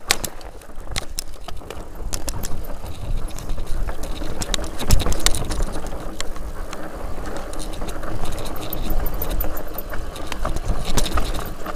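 Enduro mountain bike riding down a rocky trail: tyres crunching over rock and loose gravel, with frequent sharp clicks and rattles from the chain and bike over the bumps and a steady low rumble.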